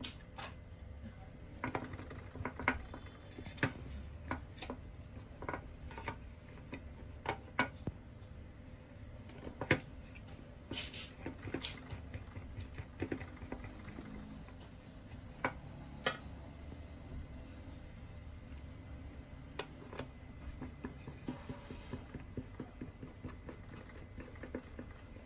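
Hand screwdriver driving in the screws that hold the new cleaning blade on a Ricoh MP 401/402 drum unit. Irregular small clicks and taps of metal on the hard plastic unit come every second or so, over a faint low hum.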